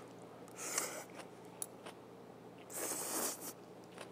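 A man slurping ramen noodles: a short slurp just under a second in and a longer, louder one around three seconds in, with a few faint clicks between.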